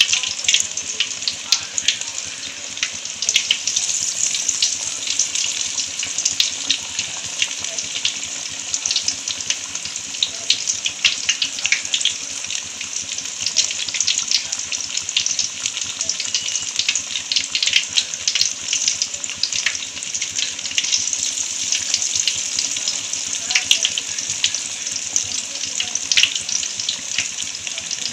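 Banana-flower and chana dal vadais deep-frying in hot oil: a steady sizzle full of small crackles and pops as the batter bubbles hard in the oil.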